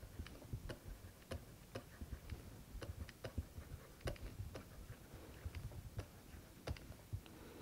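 Faint, irregular clicks and taps of a stylus on a pen tablet during handwriting, about two or three a second.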